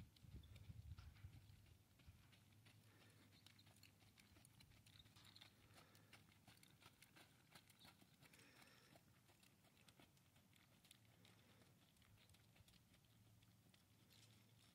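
Faint hoofbeats of a quarter horse walking on soft arena dirt: a light, irregular scatter of soft ticks. A brief low rumble comes in the first two seconds.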